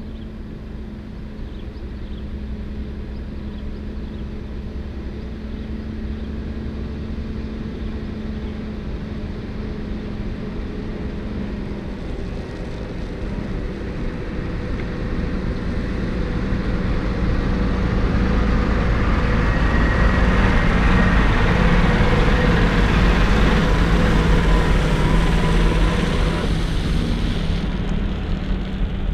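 Heavy diesel tanker truck approaching and passing close by: engine and tyre noise build steadily for about twenty seconds, peak, then fall away near the end.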